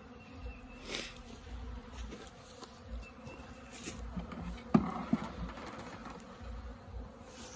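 Swarm of honeybees buzzing around a very active hive in a steady, even hum. A single sharp tap comes a little after halfway.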